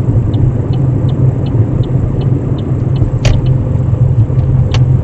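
Loud, steady low rumble of engine and road noise inside the cabin of a high-mileage car while it is driven. Over it, a light regular ticking about three times a second, with a sharp click about three seconds in and another near the end.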